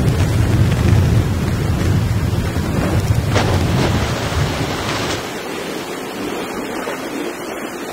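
Intamin log flume boat ploughing through water: loud rushing and splashing of spray around the boat, with wind buffeting the microphone. The heavy low rumble falls away about five seconds in, leaving quieter running water.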